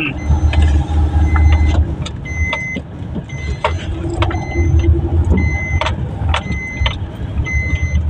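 Inside a Maruti Suzuki car driving slowly over an unpaved dirt road: a steady low rumble from the engine and tyres, with knocks and rattles from bumps. Short high electronic beeps come and go through it.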